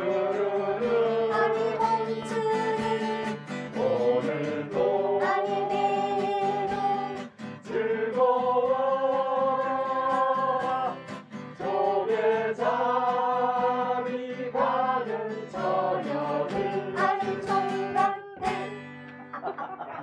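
A small group singing an old song together to a strummed acoustic guitar, in phrases of long held notes.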